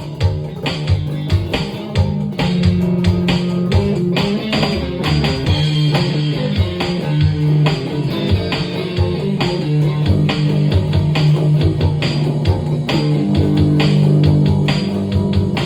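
Band improvising live in a studio: guitar and bass playing over a steady rhythm with frequent drum hits.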